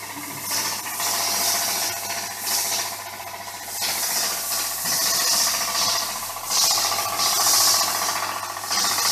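A milking machine's vacuum pump and belt-driven HTP plunger cleaning pump running together off one shared motor: a steady mechanical run with a low hum. Loud hissing surges come every second or two.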